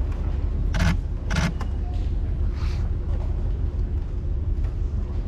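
Steady low background rumble, with two short sharp sounds about a second in.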